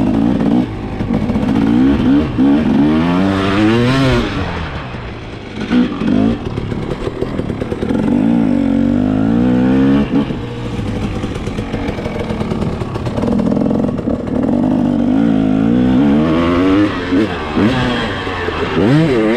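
Motocross dirt bike engine under the rider, revving up and dropping off again and again as the throttle is opened and shut over the track, its pitch climbing about four times.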